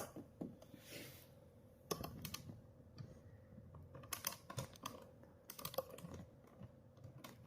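Faint, irregular light clicks and taps of hands handling and wiping the plastic casing of a sewing machine while cleaning it, with a soft rubbing stroke about a second in.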